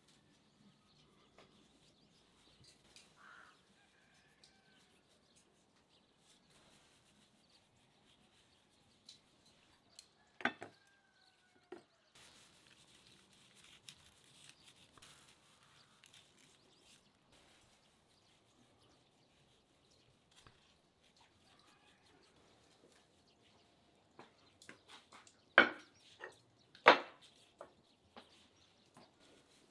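Faint bird chirps over a quiet outdoor background, with a light hiss of salt and spice being sprinkled over raw meat. Near the end come two sharp knocks about a second apart, clay bowls being handled on a wooden table.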